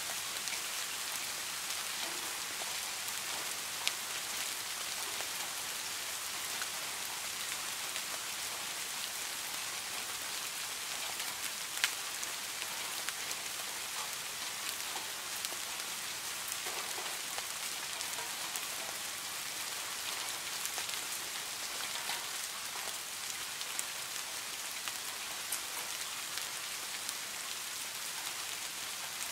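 Steady rain falling on the surface of a small garden fish pond: a dense, even hiss of drops with scattered individual plinks, and a couple of louder single drops about four and twelve seconds in.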